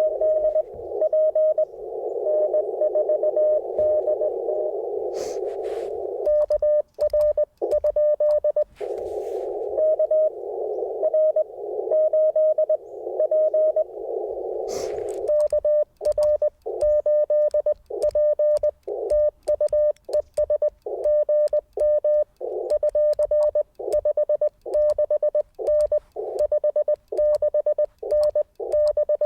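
Morse code (CW) on an Icom IC-705 transceiver: a single tone keyed into dots and dashes. Part of the time it sits inside a narrow band of static hiss as a station is received, and part of the time it is clean with the clicks of a twin-paddle key as the operator sends, mostly sending in the second half.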